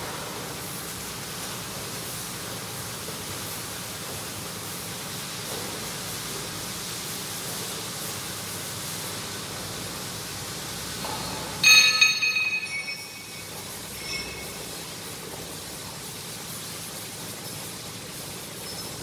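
Steady workshop background noise. A little past the middle, a metal object is struck or set down hard: a loud clang that rings for about a second, followed a couple of seconds later by a fainter metallic tap.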